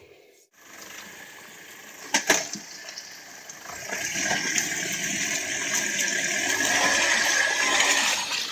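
Rushing, splashing water that grows louder about four seconds in, with one sharp knock about two seconds in.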